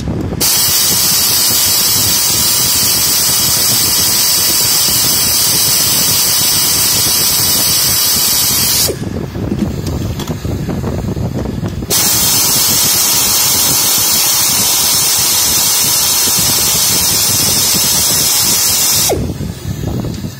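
Compressed air hissing hard from a blow gun in two long blasts, the first about eight seconds and the second about seven, each starting and stopping sharply.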